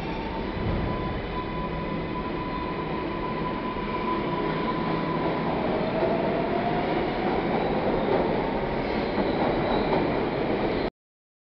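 R142A New York City subway train accelerating out of an underground station: a steady rumble of the cars and wheels on the rails, with a thin motor whine that gives way to a second whine rising in pitch partway through. The sound cuts off suddenly near the end.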